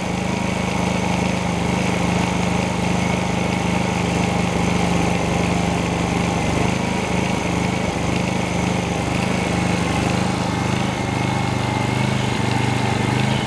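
XG-SF3700 inverter generator's engine running steadily at a constant speed, with a thin high whine above the engine note. It is running with no load: its output reads zero volts and zero watts.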